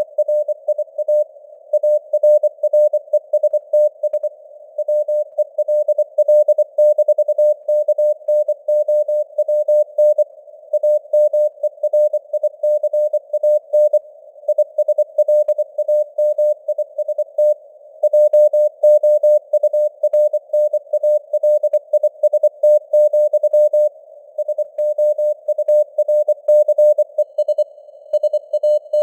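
Morse code (CW) sent at 24 words per minute: a single steady tone keyed rapidly on and off in dots and dashes, with short gaps between words, over a narrow band of hiss simulating radio noise.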